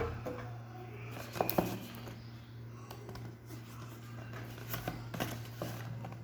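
A few light clicks and soft rustles of a delivered parcel being handled, over a steady low hum.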